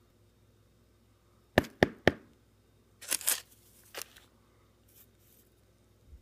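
Three sharp taps in quick succession, then a brief crinkling rustle and one last tap: handling noise.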